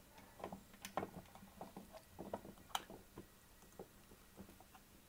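Faint, irregular clicks and light knocks of the metal drill press head being handled on its column while its small clamping lever is worked. The clicks thin out near the end.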